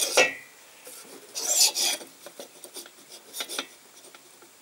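Piston sliding by hand inside a Panhard Dyna Z1 engine cylinder: a few short scraping rubs with light metallic knocks. The piston is undersized for the bore and drops through without being held.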